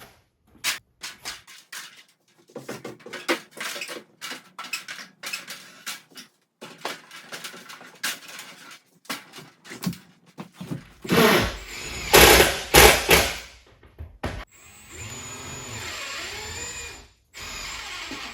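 Construction work noise: a run of knocks and clatters, then several loud bangs, then a few seconds of a steady power-tool whir.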